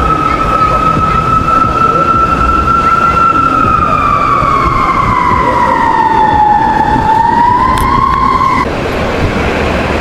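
Emergency-vehicle siren sounding one slowly wavering wail, holding its pitch, sagging lower, then climbing back before it cuts off abruptly near the end. Steady city traffic noise runs underneath.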